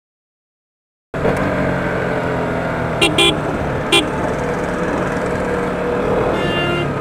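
Silence for about a second, then a KTM Duke motorcycle's engine running steadily under the rider with wind noise, and three short vehicle-horn toots about three and four seconds in.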